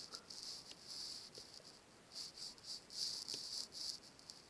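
Handwriting strokes while working out a calculation: a series of short, irregular, scratchy hisses of a writing tip on a surface.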